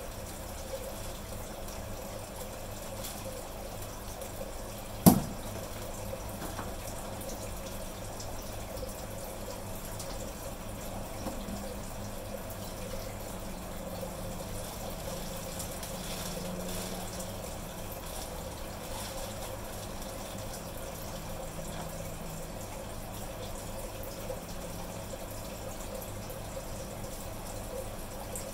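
Steady running water of aquarium filters, with a faint steady hum. One sharp knock about five seconds in.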